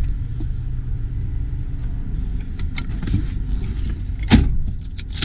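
2015 Toyota Sienna's manual third-row seat being handled, with a steady low rumble in the cabin and a single loud clunk from the seat latch mechanism about four seconds in.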